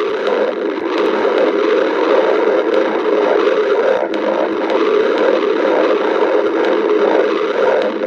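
Stomach growling: a continuous, wavering rumble that runs on without a break.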